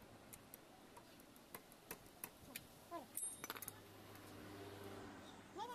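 Faint, irregular metal clicks and clinks of spanners working the camshaft timing pulley bolt, with a low steady hum coming in past halfway.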